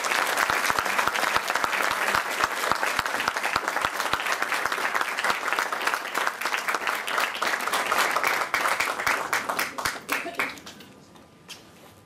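An audience applauding, many hands clapping together, which dies away near the end.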